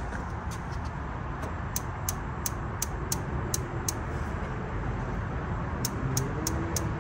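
Gas grill's electronic spark igniter clicking repeatedly, about three clicks a second, as a burner knob is turned to light the burners; the clicks pause briefly and start again near the end. A steady low rush runs underneath.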